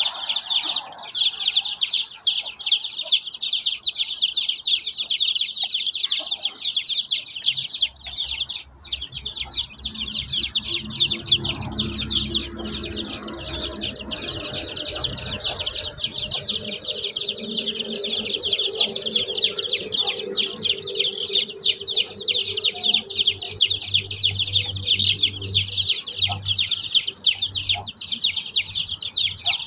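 A flock of young chickens peeping without a break, many rapid high-pitched chirps overlapping. A faint low hum comes in underneath about eight seconds in.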